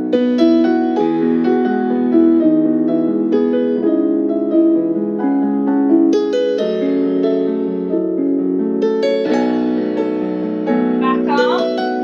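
Solo piano music playing a slow, gentle piece for a ballet port de bras exercise.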